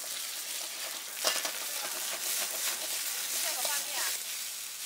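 Egg and bean sprouts sizzling in a hot wok over a gas burner while a metal ladle stirs and scrapes, with one sharp clank of the ladle against the wok about a second in.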